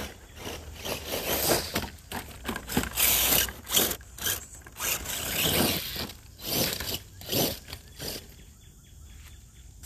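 Radio-controlled Gen 7 Pro mud truck driving over gravel and dirt, its tyres crunching and scraping in irregular bursts that die down about eight seconds in as the truck comes to a stop.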